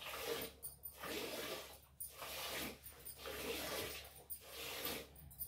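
Hand-milking a cow: jets of milk squirting into a steel pail that already holds milk, a hissing splash about once a second with short gaps between pulls.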